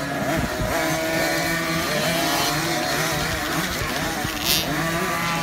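Several 50cc two-stroke youth motocross bikes racing, their engines revving up and down against each other. A brief hiss cuts in about four and a half seconds in.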